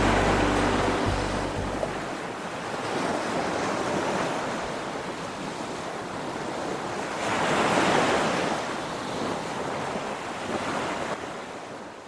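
Sea surf washing in waves, swelling and falling back several times, loudest about eight seconds in, then fading out at the end. The last of a song's music dies away in the first two seconds.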